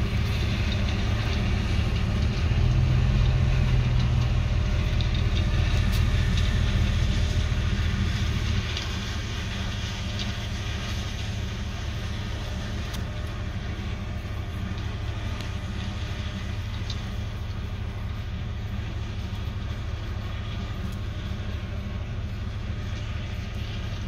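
John Deere S780 combine's diesel engine and threshing machinery running steadily while it harvests corn, a low rumble that drops in level about a third of the way through.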